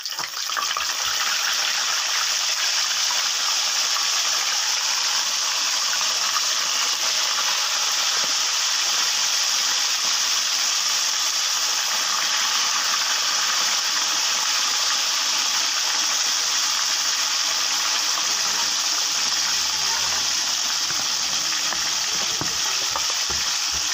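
Whole tilapia deep-frying in hot oil in a wok: a loud, steady sizzle that comes on suddenly as the fish goes into the oil and holds even as more fish are added.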